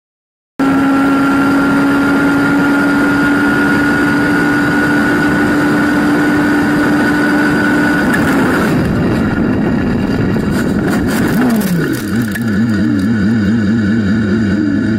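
Onboard sound of an open-wheel single-seater racing car's engine held at steady high revs, then a crash about nine seconds in: a run of sharp knocks and clatter as the engine note falls away. The engine then keeps running at a lower, wavering pitch.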